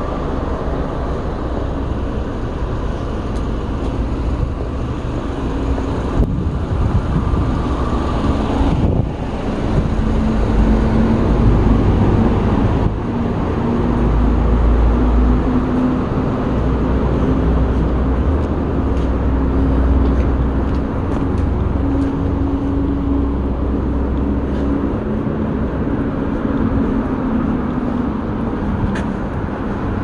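Street ambience dominated by a motor vehicle engine running nearby. A steady low hum sits over a continuous low rumble from about ten seconds in until near the end.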